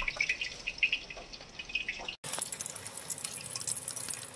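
Soup simmering in a wok on a gas burner, a steady bubbling hiss full of small pops, with a few light clinks of spoons. The sound drops out for an instant about two seconds in.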